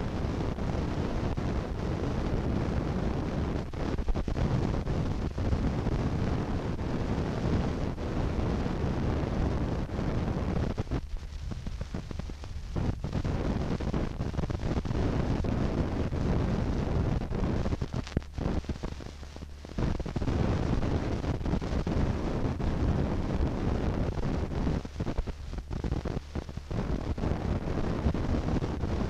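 Steady low rumbling noise with scattered faint clicks, thinning out briefly three times.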